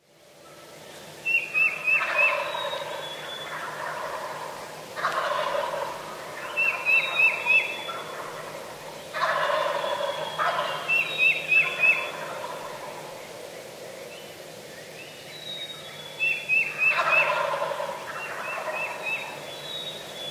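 Wild turkey gobbler gobbling four times, a few seconds apart, each gobble a quick rattling call.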